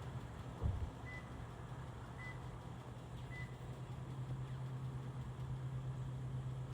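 A steady low engine-like hum with three short, even beeps about a second apart, and a single thump just under a second in.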